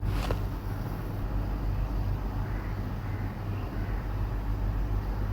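Steady low-pitched hum with an even hiss, with a short click just after the start.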